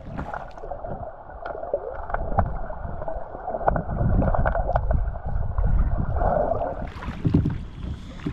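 River water heard through a camera held under the surface: a muffled churning and gurgling, with scattered sharp clicks and a low rumble, all of the high end gone. About seven seconds in the camera comes back out and open-air water splashing returns.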